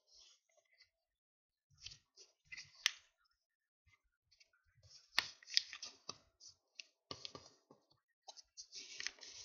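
Paper envelope being handled and folded by hand: rustling and crinkling that comes and goes, with a few sharp snaps of the paper, the loudest a pair about five seconds in.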